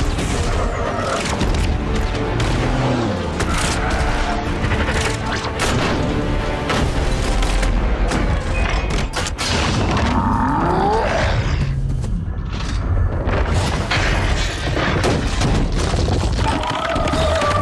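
Blockbuster action-film sound mix: dramatic score music under repeated explosions, gunfire and heavy metal crashes from giant robots fighting.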